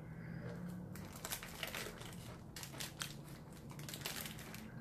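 Irregular crinkling and crackling of a chocolate bar wrapper being handled.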